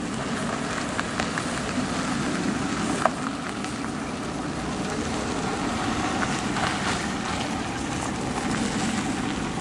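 Steady outdoor rushing noise with a few faint clicks.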